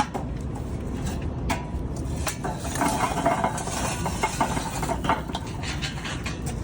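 Dishes and utensils clinking and clattering, with scattered sharp clicks and a busier stretch of clatter around the middle, over steady low background rumble.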